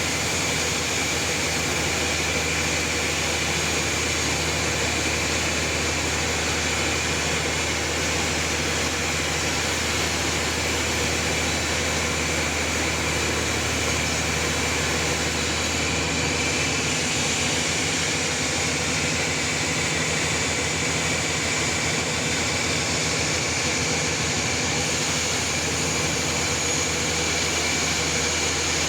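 Sawmill running steadily while sawing a trembesi (rain tree) log: a constant machine noise over a low motor hum that shifts slightly partway through.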